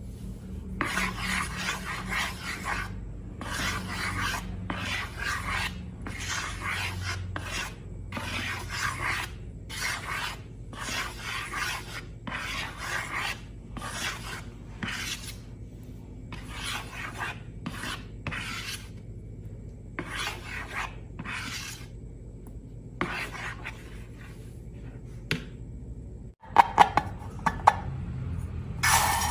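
Repeated rasping scrapes, about one or two strokes a second, of a tool working slime against a container. The strokes stop before the end, and a few sharp clicks follow.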